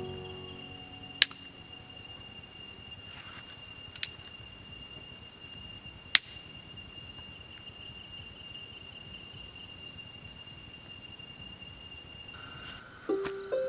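Insects trilling steadily in an even, high-pitched tone. Three sharp clicks or knocks sound about a second, four seconds and six seconds in. Music starts again near the end.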